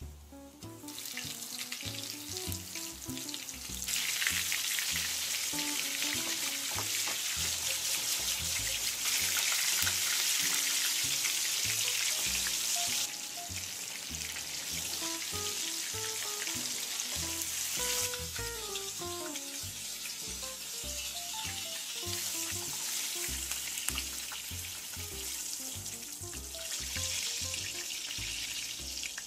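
Meatballs deep-frying in hot oil in a skillet: a steady, dense sizzle that gets louder about four seconds in and eases a little about halfway through. Background music plays underneath.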